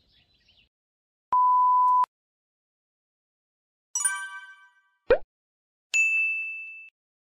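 Editing sound effects on silence: a steady electronic beep lasting under a second, then the chime, quick falling swoop and bell ding of a subscribe-and-notification-bell animation, the last ding ringing out for about a second.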